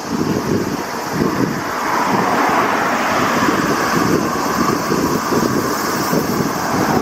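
Wind buffeting the microphone of a camera on a moving bicycle, a heavy rumbling flutter. About two seconds in, a broad rushing noise swells up and holds over it.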